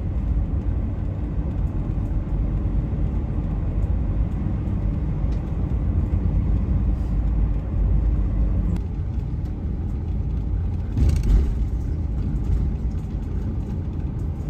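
Steady low rumble of road and engine noise inside a moving motorhome's cab, with a brief louder rush about eleven seconds in.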